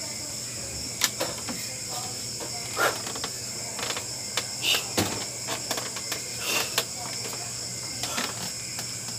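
Night insects chirring steadily at a high pitch, with scattered knocks and short thuds from someone moving around among gym equipment.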